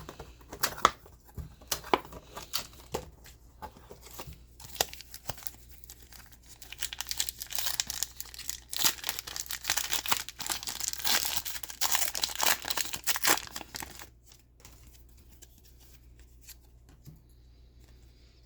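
Wrapper of a football trading card pack being torn open and crinkled, with scattered sharp clicks and taps over the first few seconds and dense crinkling from about six to fourteen seconds in, then it stops.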